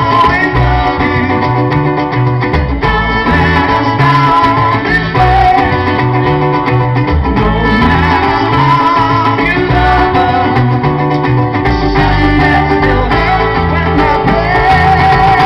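Live band playing an amplified instrumental passage: trumpet leading over acoustic guitar, electric bass and cajón with a steady beat.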